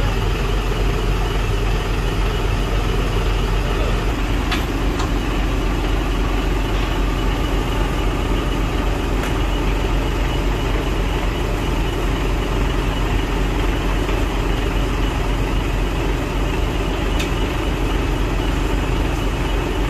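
Truck engine running steadily with road noise, and a few faint ticks.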